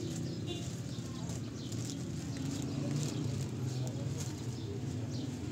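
Street ambience: small birds chirping over a steady low hum of traffic.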